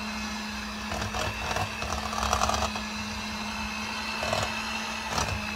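Electric hand mixer running steadily with a single beater, whipping boiled potatoes into mash, with a few short knocks along the way.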